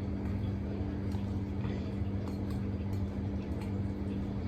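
A steady low mechanical hum from a running kitchen appliance motor, with a few faint light ticks over it.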